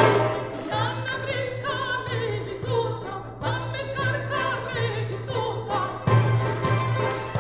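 Mezzo-soprano singing a Greek popular song in a classical, operatic style with wide vibrato, accompanied by violin, mandoloncello and accordion.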